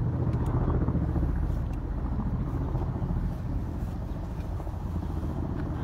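Ka-52 attack helicopter's coaxial rotors and engines, a steady low chopping drone that eases slightly about halfway through.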